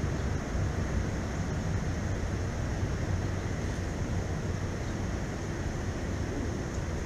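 Steady wind noise on the microphone, a low rumble with hiss above it, unbroken throughout.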